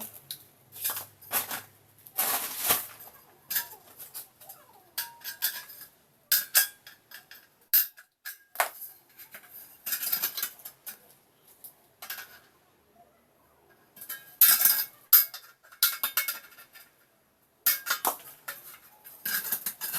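Irregular metallic clinks, knocks and clatter of thin steel drywall profile being handled and fitted into a frame, with a few gaps of quiet between bursts.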